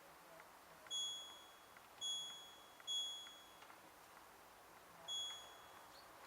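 Control panel of an LG F1222TD washing machine beeping as the wash settings are selected: four short, high electronic beeps, the first three about a second apart and the fourth about two seconds later, each fading out quickly.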